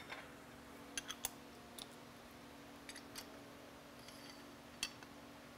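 A few faint, light metal clicks and taps of hand tools as a socket extension is swapped and fitted into a fork tube, over a steady low hum.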